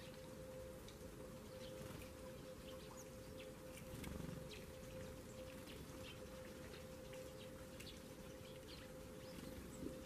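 Small birds chirping faintly and irregularly, short scattered chips, over a steady low hum.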